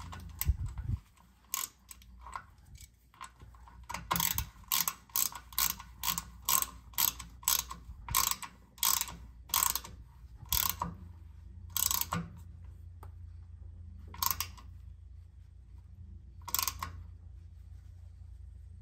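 Hand ratchet clicking as it tightens a rear differential fill plug: short sharp clicks, about two or three a second in the middle, then spreading out to one every couple of seconds near the end.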